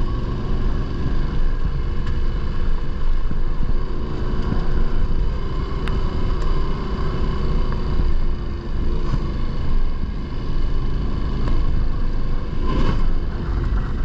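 Yamaha Ténéré 700's parallel-twin engine running steadily while the bike rides along a dirt track, with a constant low rumble and a few faint ticks.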